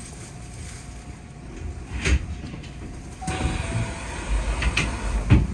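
Hankyu 1300 series electric train heard from the driver's cab as it draws into the platform and comes to a stop: low running rumble, a sharp clunk about two seconds in, then louder rumbling with a brief tone and more knocks near the end.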